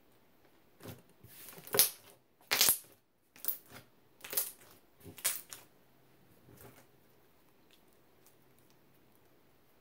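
Thick glossy slime being pressed, squeezed and stretched by hand: about eight short squishing, crackling pops, roughly one a second, the loudest about two seconds in, stopping about seven seconds in.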